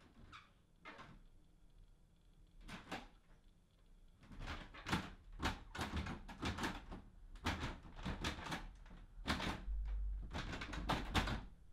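Front door rattling and knocking in its frame: irregular sharp knocks and rattles, few at first, then coming thicker and louder. A low rumble comes in near the end.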